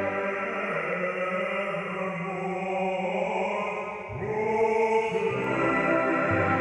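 A choir singing held chords, moving to a new chord about four seconds in.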